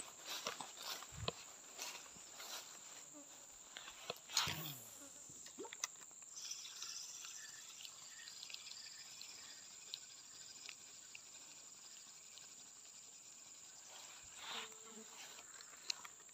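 Steady, high-pitched insect drone from the riverside forest, faint throughout. Irregular rustling and steps through the undergrowth in the first few seconds.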